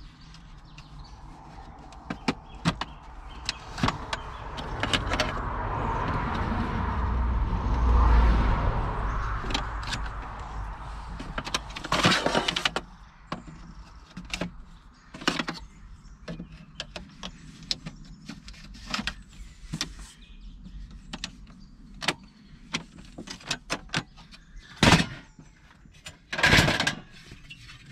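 Folding aluminium table being put together: its tubular metal legs and frame clicked and knocked into place in a string of short clicks and knocks. A rumble swells and fades over the first ten seconds, and there are a couple of louder knocks near the end.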